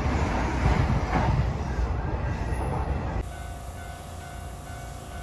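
Running noise of a Hanshin Railway train heard from inside the car: a loud low rumble and rattle of wheels on the track. About three seconds in it cuts sharply to a quieter steady hum with faint steady tones from a train standing at a station platform.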